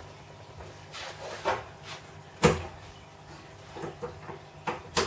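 Scattered knocks and clicks from a person moving about a room and handling things by the wall, about seven in all, the sharpest about halfway through.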